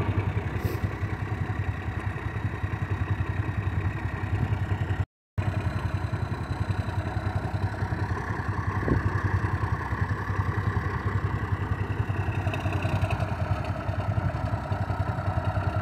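Allis-Chalmers 7045 tractor's diesel engine running steadily while the tractor works its loader to tip a round bale of hay up on end.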